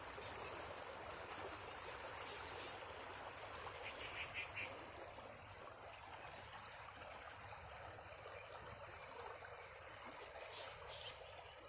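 Fast-flowing river water rushing over a low earthen bank, a steady rushing wash. A short run of faint chirps comes about four seconds in.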